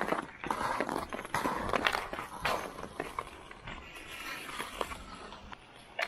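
Ice skate blades scraping and hissing on rink ice in irregular strokes, with sharp clicks scattered through.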